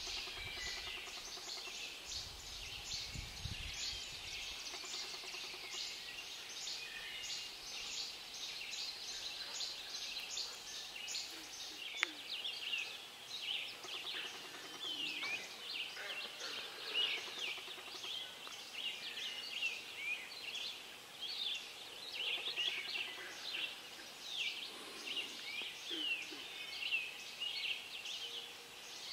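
Dawn chorus of many songbirds in a northern woodland at peak birdsong season, a dense overlapping mix of high chirps and trills. A low rumble sits under the first few seconds, and a single sharp click comes about twelve seconds in.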